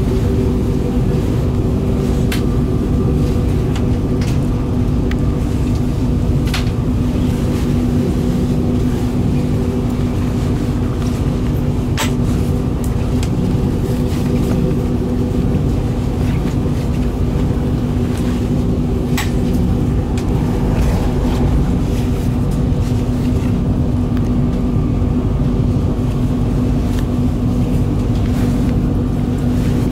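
Cabin noise inside a moving VR Pendolino (Sm3) tilting train at speed: a steady low rumble of the running gear with a steady hum on top. A few short sharp clicks come through every several seconds.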